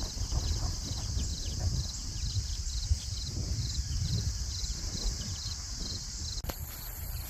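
Steady chorus of insects in the grass, with a regular chirp repeating a few times a second over a low rumble of wind on the microphone. The sound changes abruptly about six and a half seconds in.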